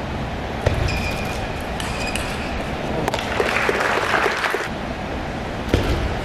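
Table tennis ball sounds over the steady noise of a sports hall: sharp clicks of the celluloid ball on bat and table, three times, with a run of quick light taps in the middle.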